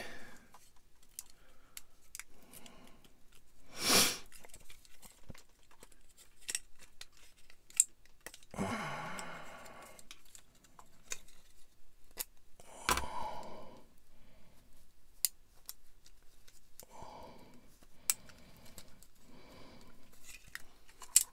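Scattered clicks, taps and rustles of small plastic model parts, fine wire and metal tweezers being handled on a workbench, with one louder knock about four seconds in.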